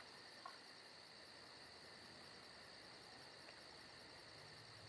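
Near silence with faint, high-pitched cricket chirping: a steady run of about eight pulses a second.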